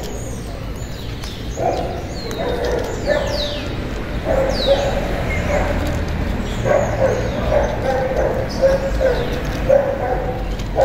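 A series of short, repeated animal calls, with birds giving quick falling chirps now and then.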